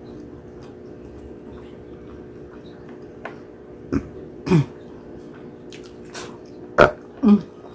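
Wet mouth sounds of eating braised pork hock by hand: a handful of sharp lip smacks and finger-sucking pops, the loudest nearly two-thirds of the way in, a couple of them with a short low 'mm'-like sound, over a faint steady hum.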